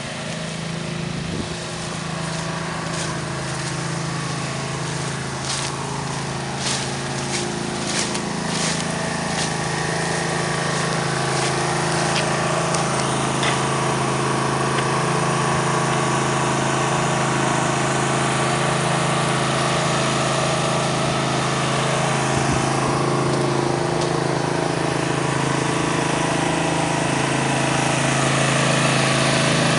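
A small engine running steadily, slowly growing louder, with a few sharp clicks in the first half.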